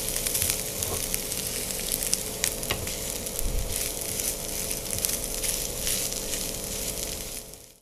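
Mashed potato and onion frying in oil in a non-stick pan, sizzling steadily, with a spatula scraping and stirring through the mixture in scattered clicks. The sound cuts off suddenly just before the end.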